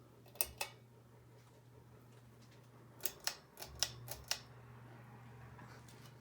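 Hampton Bay Redington IV ceiling fan running with a steady low motor hum. Sharp clicks sound over it: two about half a second in, then a quick run of about six around three to four seconds in.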